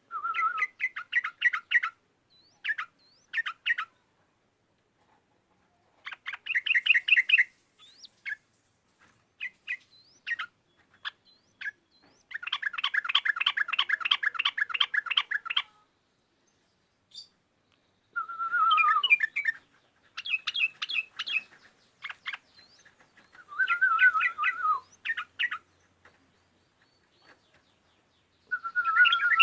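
Yellow-vented bulbul (trucukan) singing in repeated bursts of rapid, bubbly chattering notes, each burst a second to a few seconds long, separated by short silences. A faint steady high-pitched buzz runs beneath.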